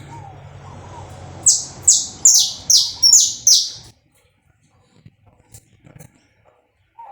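Saffron finch singing a run of six loud, sharp notes, each sweeping down in pitch, about two and a half a second, starting about a second and a half in and breaking off suddenly about four seconds in.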